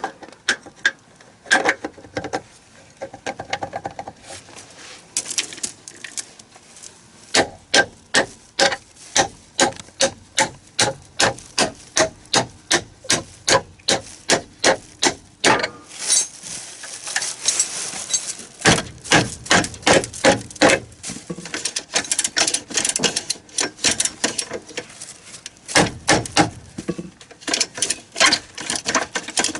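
Hand tools working the bolts of a rubber crawler track joint: a long run of sharp metallic clicks or taps, often about two a second, with a brief scraping hiss partway through.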